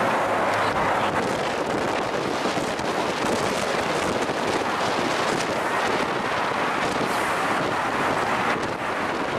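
Steady rushing road noise of a car driving through a road tunnel, heard from inside the cabin.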